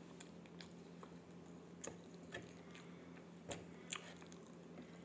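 Close mouth sounds of a person chewing a mouthful of rice and smashed fried tempe: faint, with a few soft wet smacks and clicks, the clearest a little past the middle.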